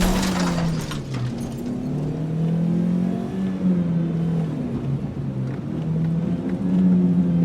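Car engine revving, its pitch rising and falling.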